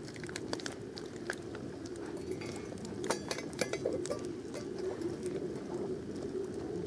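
Wood campfire burning high in a small fire grill: a steady low rush of flame with frequent sharp crackles and pops, a quick cluster of pops about three seconds in.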